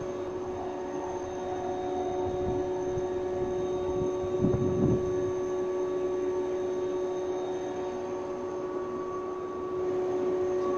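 Kumoya 145 motor car hauling 381-series cars, moving slowly past a station platform: steady electric humming tones over a low running noise, with a brief low rumble about four and a half seconds in.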